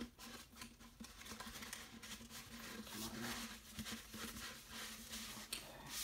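Soft rustling and small irregular taps of paper and cardboard being handled as posters are pulled out of their packaging, over a faint steady hum.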